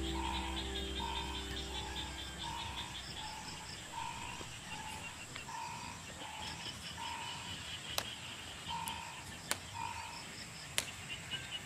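A frog calling, one short note repeated a little more than once a second, over a higher chirring chorus of insects. A few sharp clicks near the end.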